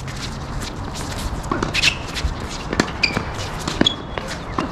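Tennis balls struck by racquets and bouncing on a hard court during a doubles rally: several sharp pops roughly a second apart, with players' feet shuffling on the court between shots.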